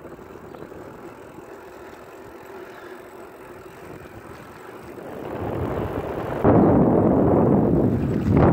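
Wind rushing over the microphone of a camera carried on a moving bicycle. It swells about five seconds in, jumps suddenly louder and then cuts off abruptly near the end.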